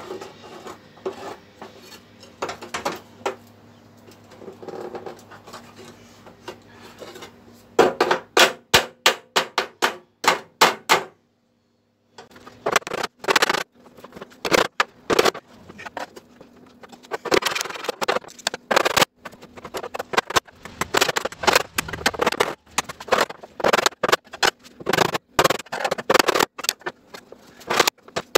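Hammer tapping a sheet-steel patch into place in a truck cab panel: a quick run of sharp metal strikes about eight seconds in, then, after a brief gap, more irregular knocks and clatter.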